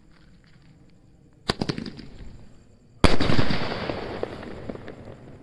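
Medium-size sky shot aerial firework: a sharp crack with a brief rattle of smaller cracks about a second and a half in, then a louder bang about three seconds in as the shell bursts into coloured stars, trailing off in a fading crackle.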